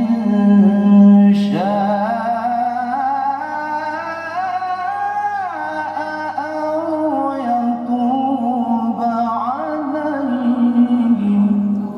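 A man reciting the Quran in the melodic tilawah style, drawing out long, ornamented phrases. About a second and a half in he leaps from a held low note to a high line, and near the end he comes back down to the low note.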